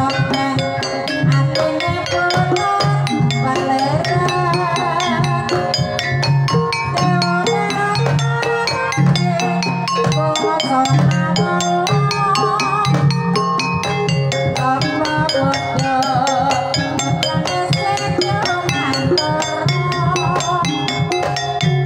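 Javanese gamelan playing a Banyumasan tayub piece: bonang kettle gongs struck with padded mallets in a busy pattern over lower gong tones, while a sinden sings a wavering, ornamented melody over the ensemble.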